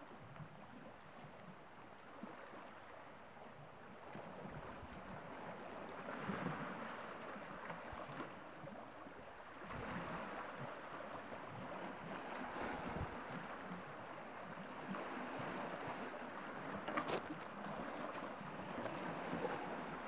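Small waves lapping and splashing against shoreline rocks on a nearly calm sea, swelling every few seconds, with a few sharper splashes near the end.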